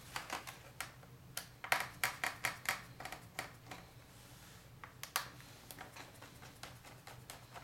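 Small screwdriver turning out the screws of a laptop's hard drive cover: a run of light clicks and ticks of metal on screw and plastic casing. Most fall in the first three seconds, with a few more about five seconds in.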